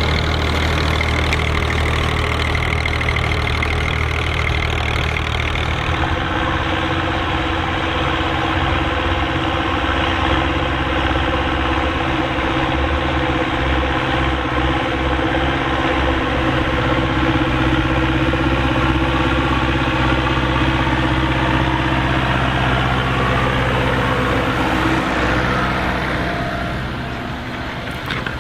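Massey Ferguson 135 tractor engine running steadily under load while pulling a four-furrow plough; its note changes about six seconds in and drops near the end.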